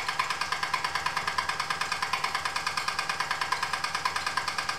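Wilesco D6 toy steam engine idling with no real load, its steam exhaust chuffing in a fast, even rhythm of about five or six beats a second.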